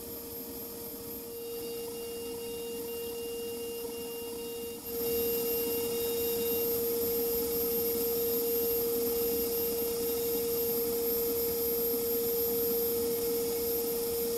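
CNC milling machine cutting a metal sphere under flood coolant: a steady high whine from the spinning cutter over the hiss and spatter of the coolant spray. It gets louder about five seconds in.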